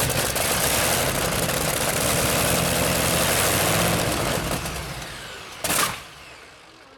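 Curtiss-Wright 18-cylinder radial engine running loudly just after starting, then dying away over a second or two, with a single sharp bang as it runs down.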